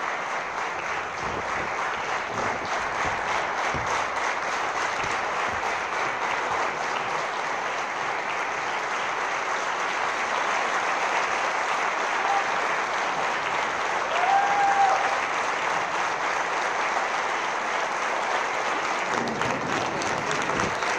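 Theatre audience applauding steadily at a curtain call, with a brief call from the crowd rising above the clapping about two-thirds of the way through.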